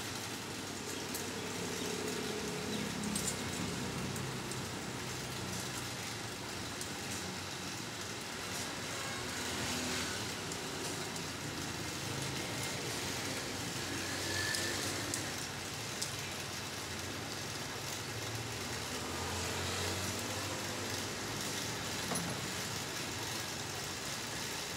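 Steady background rumble like vehicle noise, with a few faint light clicks as a saw chain is handled and fitted onto a chainsaw bar.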